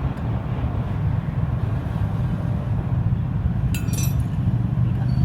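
A steady low mechanical rumble runs throughout. About four seconds in there is a short burst of metal clinking, as small metal parts or tools knock together while the scooter engine is being reassembled.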